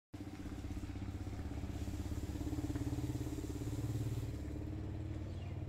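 A small engine idling steadily with a low, even note and a fast regular pulse, a little louder in the middle.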